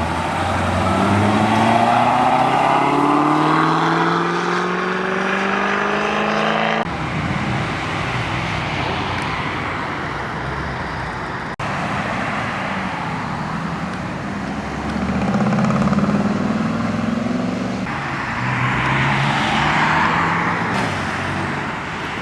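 Several performance cars accelerating hard one after another, their engine pitch climbing as each pulls away, followed near the end by a louder rushing pass. The sound changes abruptly twice, once about seven seconds in and again with a brief dropout near the middle.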